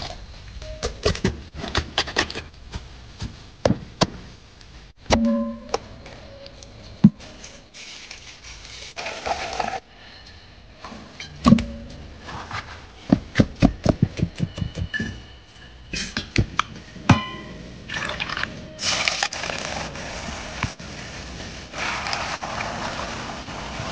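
Food preparation at a kitchen counter: a string of sharp knocks and clatters of knife, bowl and utensils, with a quick run of knocks about two-thirds of the way through and stretches of rushing noise near the end.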